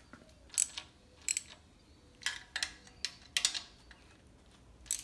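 Hand tools clicking and clinking on metal as a ratchet is worked on the water pump bolts of an engine: about eight sharp metallic clicks at uneven intervals.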